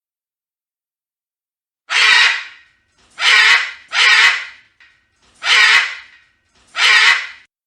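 A bird calling five times, each call about half a second long and spread over a few seconds, the second and third close together.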